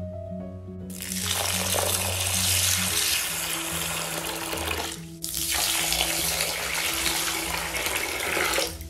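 Water running from a kitchen tap in two stretches, broken by a short pause about five seconds in, over background music.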